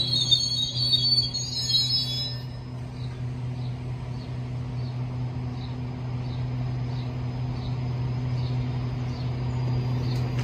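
GO Transit bilevel commuter train's wheels squealing high as it slows to a stop, cutting off about two seconds in. A steady low hum from the standing train carries on, with faint high chirps repeating about three times every two seconds.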